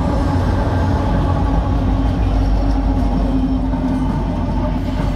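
Norfolk Southern diesel-electric freight locomotives, among them an AC44C6M, passing at close range: engines running with a steady low drone over the rumble of wheels on the rails.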